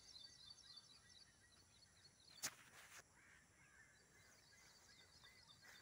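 Near silence: faint outdoor background with small birds chirping high and thin, and a single short click about two and a half seconds in.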